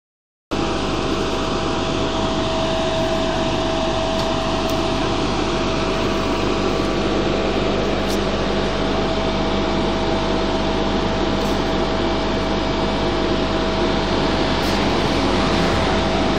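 Vacuum excavation (soft dig) equipment running steadily, a constant mechanical drone with a steady whine in it.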